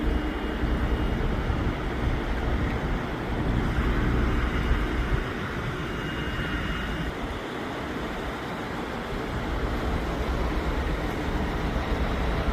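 Steady low rumble of vehicle engines and road traffic, with no clear starts or stops.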